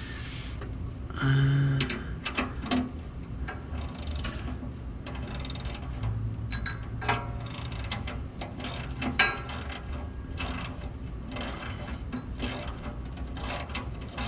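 Hand ratchet on a 17 mm socket clicking in short runs as a tight oil drain plug is worked loose from the oil pan, with a sharper knock about nine seconds in.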